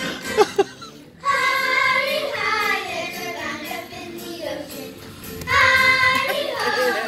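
Group of children singing a song over a backing music track. Two brief loud knocks come just before the singing starts, about a second in, and a louder sung phrase enters near the end.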